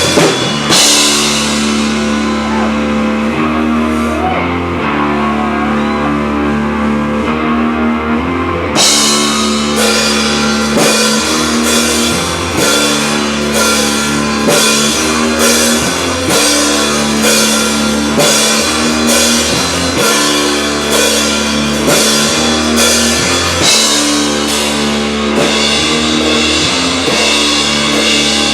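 Rock band playing an instrumental passage on guitar and drum kit, holding chords over a steady beat. The cymbals drop back for the first several seconds, and the full kit comes back in about nine seconds in.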